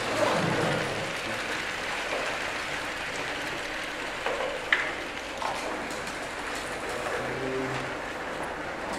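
Steady room noise of a lecture hall, a constant hum and hiss, with a few brief faint voices from the audience.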